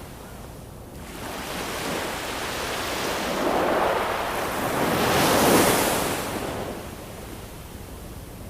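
Ocean waves: a wave swells in about a second in, breaks with a loud hiss of surf around the middle, and washes back out.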